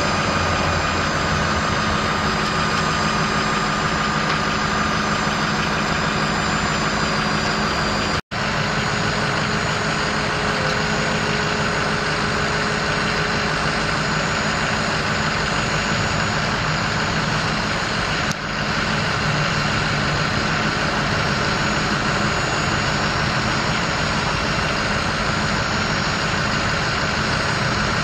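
Ford 6.0L V8 turbo diesel in a 2007 F450 Super Duty idling steadily. The sound cuts out for an instant about eight seconds in.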